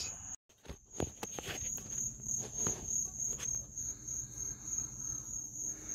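Crickets chirping in a steady high-pitched drone, with a few soft knocks and taps in the first few seconds.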